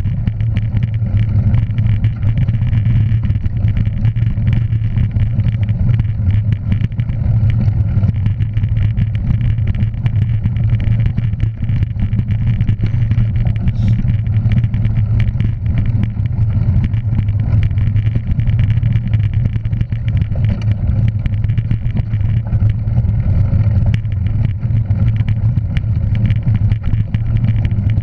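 A motor vehicle's engine running steadily: a constant low drone with rumble beneath it, holding the same pitch with no revving.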